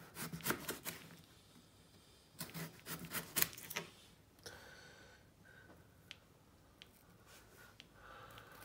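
Kitchen knife slicing raw potatoes on a chopping board: quick runs of crisp cuts and blade taps on the board near the start and again about two and a half seconds in, then a few single taps.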